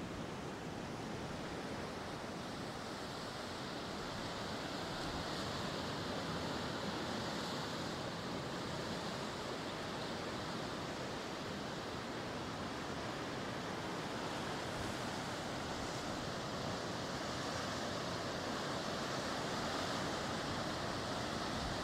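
Atlantic surf breaking and washing on the shore, a continuous rushing noise that swells a little over the first few seconds, with some wind on the microphone.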